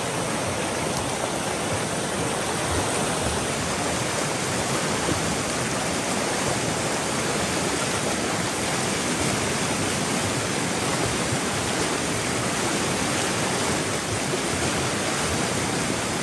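Swift, shallow rocky stream rushing through rapids: a steady, unbroken sound of white water.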